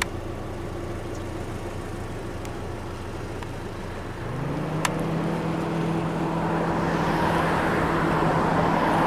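Car engine running steadily. About four seconds in its pitch steps up and holds at the higher level, while a rushing noise builds after it.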